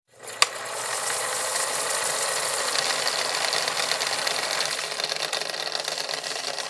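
Logo-intro sound effect of an old film projector running, a steady mechanical clatter and whir, with a sharp click about half a second in.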